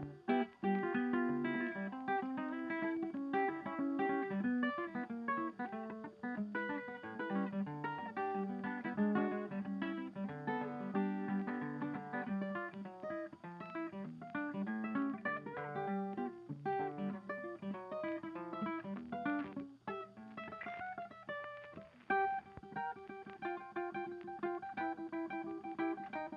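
Background music: acoustic guitar playing a busy, fast-moving plucked tune with strummed chords.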